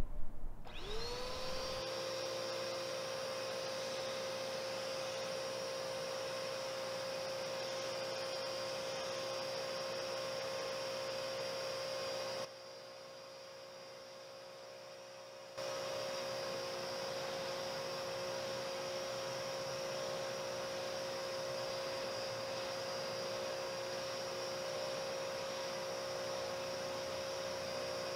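Coin-operated car wash vacuum switching on: its motor whines up to speed within about a second, then runs with a steady whine. About halfway through it goes quieter for a few seconds, then comes back to full level.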